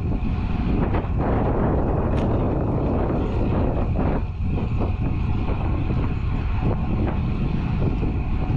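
Wind rushing over an action camera's microphone on a road bike moving at about 29 km/h, with tyre noise on asphalt, steady throughout. A faint steady high tone runs underneath.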